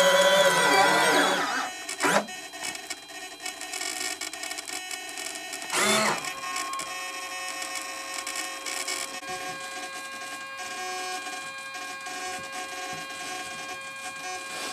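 Retractable landing gear of a model jet whining as the main gear folds up, the whine winding down about a second and a half in. A click follows about two seconds in and a short whir near six seconds, then a faint steady hum.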